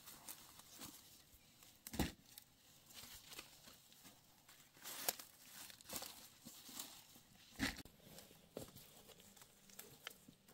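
Faint, irregular rustling and crackling, with a few sharp snaps about two, five and seven and a half seconds in.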